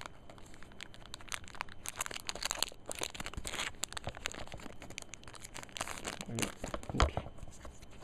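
Foil booster-pack wrapper crinkling and tearing as it is opened by hand, in a dense run of irregular crackles. A single louder knock comes about seven seconds in.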